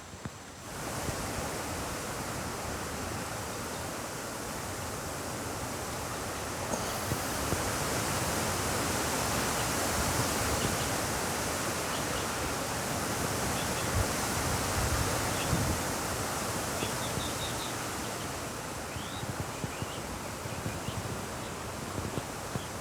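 Steady wind hiss, with no distinct calls standing out. It starts abruptly just under a second in and grows louder about seven seconds in.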